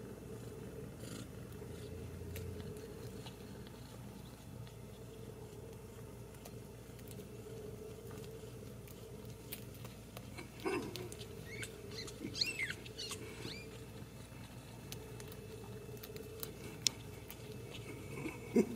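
Newborn Ragdoll kittens nursing, with faint small clicks and shuffles and a few short, high, squeaky mews about a third of the way from the end. A brief louder sound comes just before the end.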